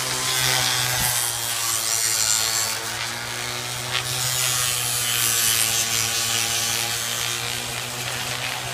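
DeWalt random orbital sander running steadily with its motor hum, the sanding pad rubbing against the sole and toes of a bare foot. There are two brief knocks, about a second in and again about four seconds in.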